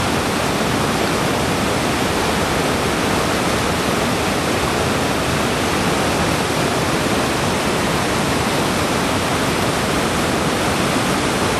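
Whitewater pouring over a rocky ledge drop and through rapids: a loud, steady rush of falling water.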